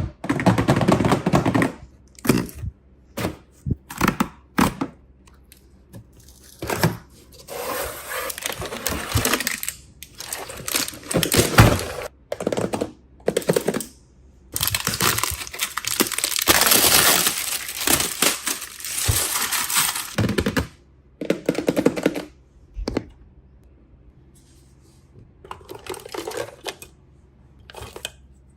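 Small plastic toy pieces clicking and tapping, with stretches of plastic packaging crinkling and tearing, the longest lasting about six seconds in the middle.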